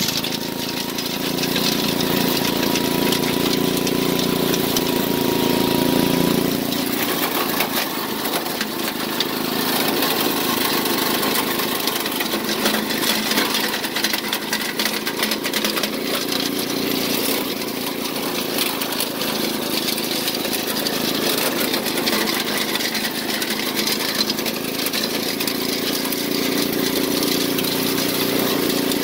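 Mighty Mac chipper's 7 hp Briggs & Stratton single-cylinder engine running steadily under load, with branches being chipped. About six seconds in, the deep engine note grows fainter and the noise of the chipping comes to the fore.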